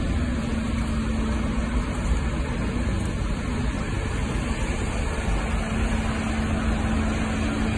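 Vehicle engines idling steadily: a constant low rumble with a steady hum running through it.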